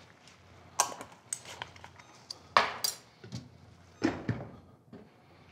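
Utensils clinking and clattering against a metal pan of pie filling on the stove, several short sharp knocks, then a lid set down on the pan with a couple of clanks about four seconds in.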